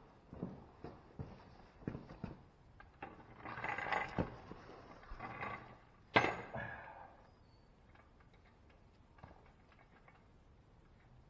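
Handling noises of work on a truck's steering tie rod: a run of knocks and taps, cloth rustling close to the microphone, and one sharp clank just after six seconds, then a few faint clicks.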